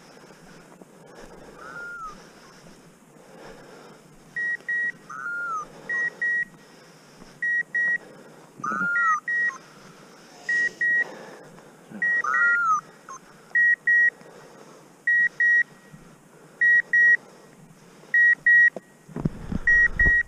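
Electronic beeper collar on a bird dog sounding a sharp double beep about every second and a half, starting about four seconds in, with a separate falling chirp every few seconds. Footsteps brush through tall dry stubble underneath, and a low thump comes near the end.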